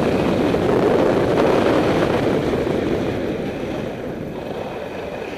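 Skis running and carving on firm groomed snow: a steady scraping hiss that fades away over the last two seconds.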